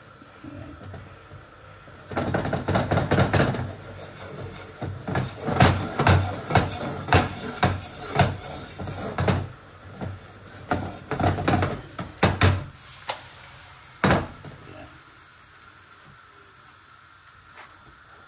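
Non-stick frying pan knocking and rattling on the gas hob's pan support as it is shaken and tilted, with an egg and eggplant omelette sizzling in oil. The clatter comes in quick runs and stops about three-quarters of the way through, leaving a quieter sizzle.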